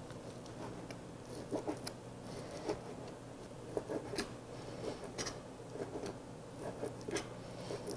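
Chef's knife cutting raw beef round into thin strips on a plastic cutting board: light, irregular taps of the blade striking the board.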